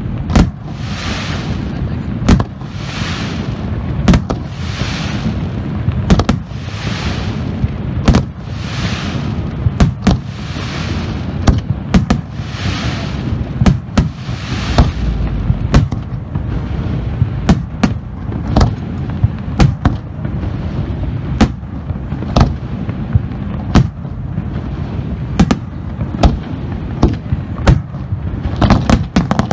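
Aerial fireworks display: shells bursting with sharp bangs, at times several a second, over a continuous low rumble. Through the first half a hissing rush swells about every two seconds.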